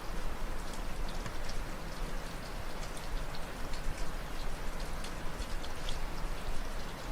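Steady rainfall: a constant hiss with many individual drops ticking sharply on a hard surface.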